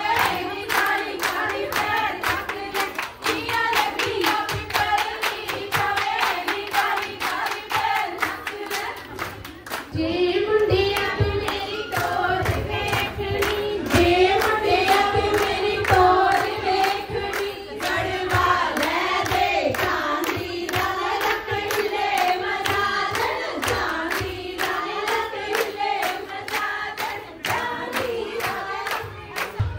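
A group of women singing Punjabi boliyan for giddha dancing, with steady rhythmic hand clapping. The singing grows louder about ten seconds in.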